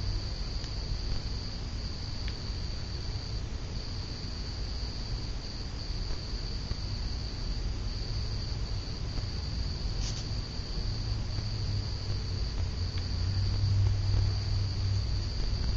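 SMC Laguna ceiling fan running with a steady low hum that grows louder near the end, under a continuous high-pitched trill; a single faint click about ten seconds in.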